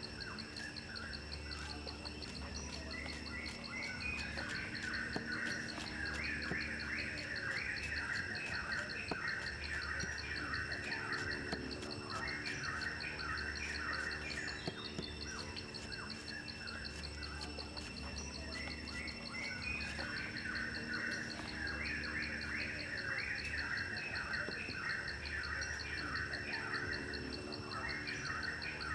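Small birds chirping in repeated clusters over a steady, rapidly pulsing insect trill, with a low hum beneath. The whole pattern repeats about every eight seconds.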